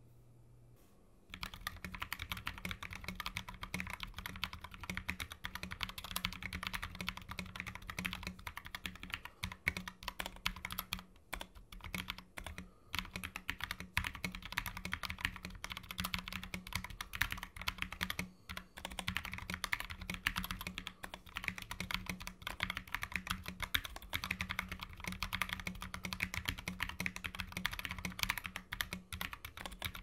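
Typing on a GMMK TKL mechanical keyboard with Drop Halo Clear tactile switches: a continuous, dense run of keystroke clacks that starts about a second in after a brief pause.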